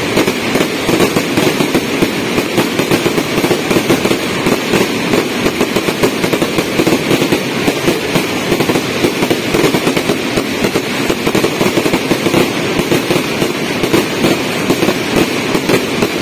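Aerial fireworks in a continuous, dense barrage of bangs and crackling. Bursts come many times a second without a break, with the crackle of the glittering star trails mixed in.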